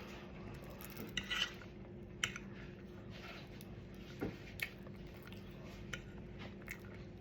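Eating utensil clinking and scraping against a dish in a few faint, scattered taps while the last of the corned beef is scooped up.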